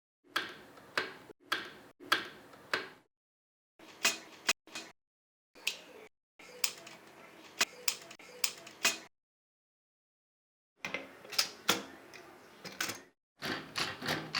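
Facit manual typewriter mechanism clacking: sharp metallic strokes of keys and type bars, a few a second, in short bursts broken by abrupt cuts to silence.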